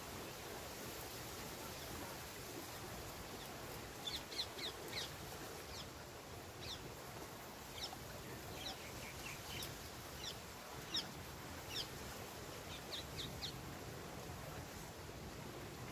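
Small birds chirping: clusters of short, high notes that drop quickly in pitch, starting about four seconds in and recurring every second or so, over a faint steady hiss.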